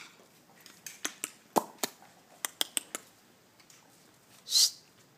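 Puppies' claws clicking and tapping on a tiled patio as they scamper about, a quick run of clicks in the first three seconds, then one short high-pitched squeak near the end.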